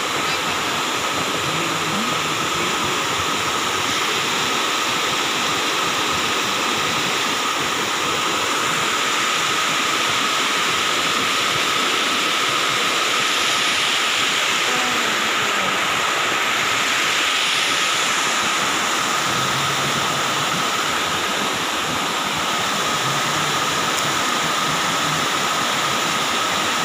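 Small waterfall cascading over rock ledges: a steady rushing and splashing of water, close and unbroken.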